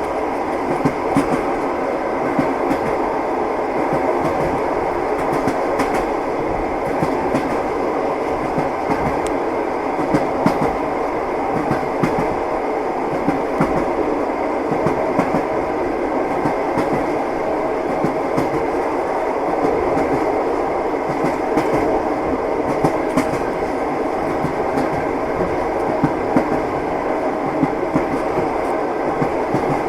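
Train wheels clacking over rail joints as the train runs at a steady speed: a continuous rumble broken by frequent short, sharp knocks.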